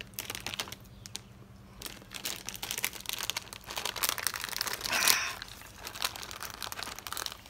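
Thin plastic snack packet crinkling as it is handled, with a louder tearing rip about five seconds in as it is torn open.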